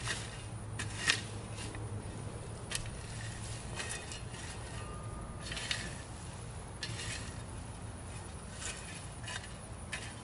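Irregular scrapes and clinks of hand tools at work, about ten separate strokes at uneven spacing, over a steady low hum.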